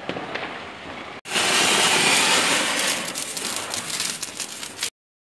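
Ground firework spraying sparks with a loud, steady hiss and crackle. It starts suddenly about a second in and cuts off just before the end.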